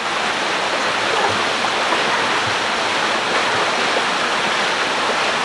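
Water cascading over the artificial rocks of a pool water slide, a steady rushing.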